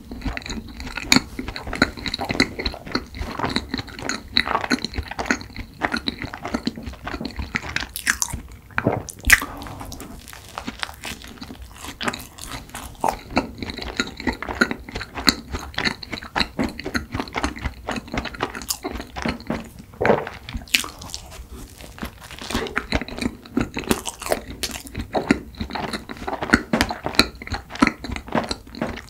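Close-miked eating: bites into and chewing of a soft, powdered-sugar strawberry chiffon donut with cream filling, full of small wet mouth clicks.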